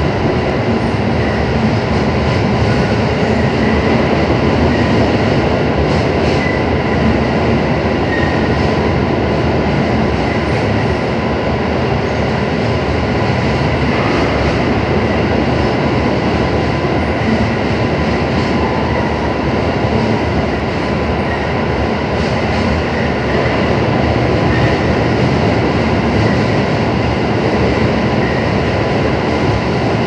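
JR 221 series electric train running through a tunnel, heard from inside the car: a loud, steady rumble and rush of wheels on rail, echoing off the tunnel walls, with a faint steady high tone under it.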